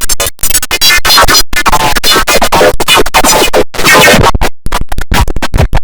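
The IBM OS/2 Warp 3 shutdown sound put through a stutter-and-chop audio effect. It is loud, cut into rapid, repeating fragments with abrupt dropouts between them, so it sounds like turntable scratching.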